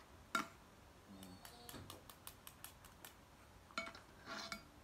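Faint crackling and clicking of crisp lahmacun flatbread being pulled off a stack and torn by hand, with a quick run of small crackles about two seconds in and a few sharper clicks around it.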